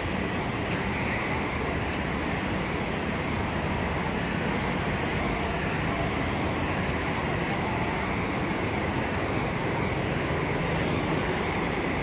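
Steady background din of a busy covered market hall, an even wash of noise with no single sound standing out.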